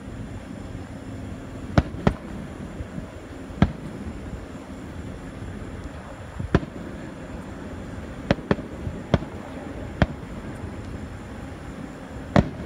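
Fireworks bursting overhead: about nine sharp bangs at irregular intervals, two of them close together around the middle.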